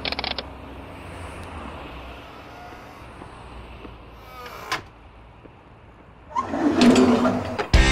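Door and body noises from a Volkswagen T3 van as someone gets out, over a low steady rumble. There is a brief rattle at the start, a sharp knock about halfway through and a louder rattling, scraping noise near the end.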